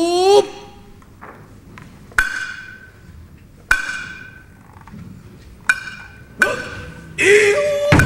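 Tsuzumi hand drums of a nagauta hayashi ensemble, struck singly: four sharp, ringing beats spaced one to two seconds apart. The drummers' shouted kakegoe calls, rising in pitch, come in near the end. A sung note from the Nagauta singers cuts off just after the start.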